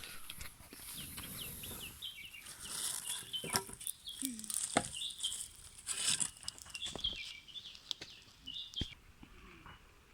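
Small birds chirping in quick, short falling notes, with a high steady hiss that fades out about seven seconds in and a few sharp knocks scattered through.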